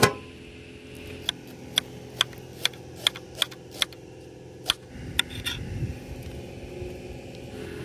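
A run of about ten sharp, separate clicks, several of them roughly half a second apart, over a faint steady hum. A low rumble comes in about five seconds in.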